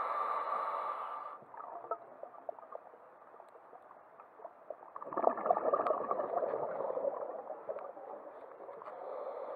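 Scuba diver breathing through a regulator underwater. There is a hissing inhalation at the start, a burst of bubbling exhalation beginning about five seconds in and lasting a couple of seconds, and the next inhalation starting near the end.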